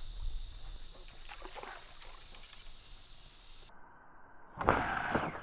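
Quiet night-time pond-side ambience with a steady high drone of night insects. Near the end, a short rushing noise lasting under a second.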